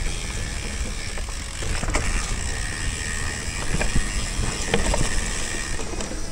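Mountain bike being ridden over a dirt trail: steady rumbling tyre and ride noise with scattered clicks and knocks from the bike over rough ground.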